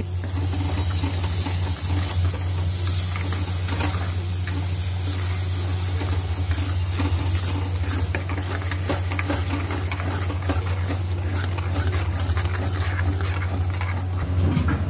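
Steel spoon stirring and scraping mashed potato halwa against a metal kadhai, with frequent irregular scrapes and clinks of the spoon on the pan. A steady low hum runs underneath.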